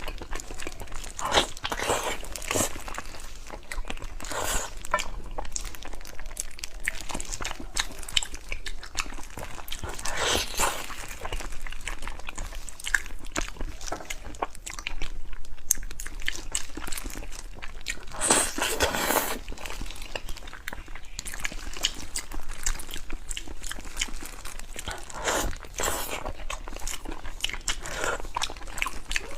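Close-up eating sounds: a person biting and chewing braised pig's trotter stewed until soft, with many short wet clicks and a few louder bites.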